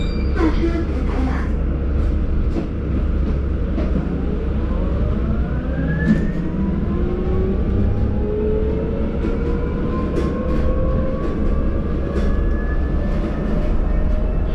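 Inside a city bus under way: a steady low road-and-engine rumble, with a drive whine that rises in pitch over several seconds as the bus picks up speed, and scattered light rattles from the cabin.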